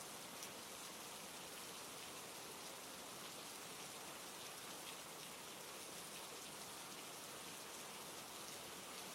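Steady rain falling on a forest: an even hiss with faint, scattered drop ticks.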